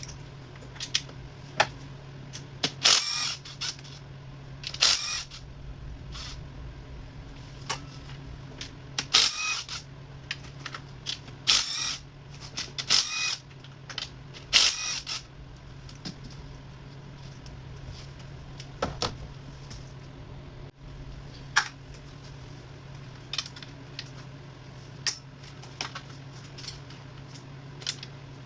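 Metal tools and parts clinking and clattering in irregular bursts, most busily in the first half, while work is done on a diesel engine's injectors, over a steady low hum.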